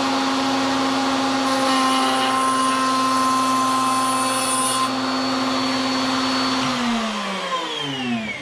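Electric wood router running at full speed, with a harsher, higher hiss for about three seconds in the middle, then switched off and winding down in pitch near the end.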